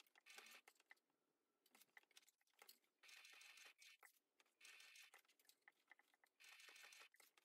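Sewing machine stitching in several short runs of under a second to about a second each, stopping between runs as the work is turned to sew a small square of stitches through a folded fabric strap. Faint.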